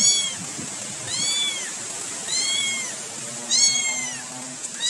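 A cat meowing over and over: high-pitched meows that rise and fall in pitch, about one a second.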